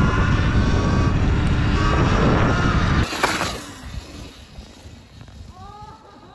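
Wind rushing over the handlebar-mounted microphone as a 2021 Sur Ron electric dirt bike is ridden along a path, with the electric motor's whine faintly rising underneath. About three seconds in the sound cuts to something much quieter: the bike's faint whine from a distance as it rides away over grass.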